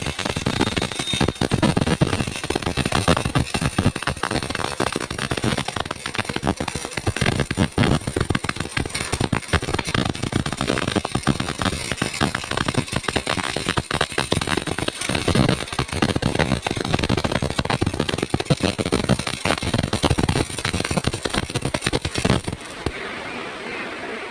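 Electric welding arc crackling continuously with dense spatter pops, dying down about 22 seconds in.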